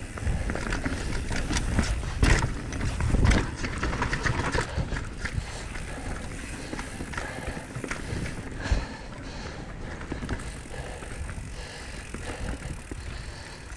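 Mountain bike riding down a dirt and dry-leaf singletrack: tyres rolling and crunching over the trail with a steady rumble, and the bike knocking and rattling over bumps, heaviest about two to three and a half seconds in.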